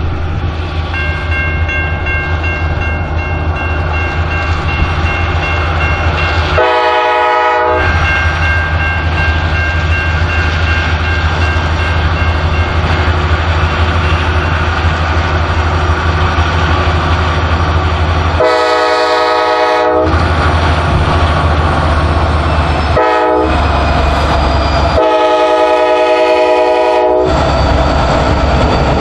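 Norfolk Southern diesel freight locomotives approaching with a steady low engine drone, sounding the air horn four times: one blast about seven seconds in, then three more in the second half, a short one between two longer ones, the last the longest.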